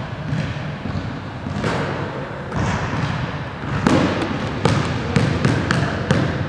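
Basketball dribbled on a hardwood gym floor, each bounce echoing in the large hall. A few softer bounces come first, then a quick run of sharp bounces about four to six seconds in.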